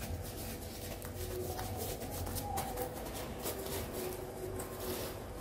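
A paper tissue crinkling and rustling in the hands as it is wrapped around a piece of fried stuffed tofu, in many small sharp crackles.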